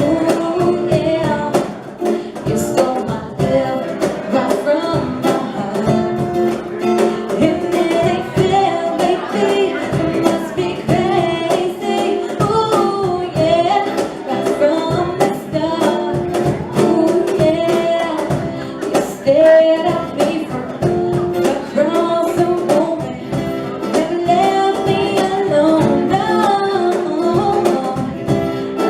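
Live reggae band playing an original song: singing over guitar, with a steady rhythmic beat.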